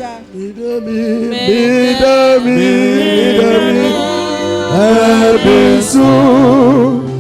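Gospel worship singing: a voice sings a slow melody in long held notes, with a wavering vibrato note near the end.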